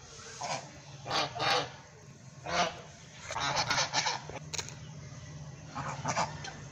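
White domestic geese honking: short calls in irregular bursts, with a quick run of several calls about halfway through and another pair near the end.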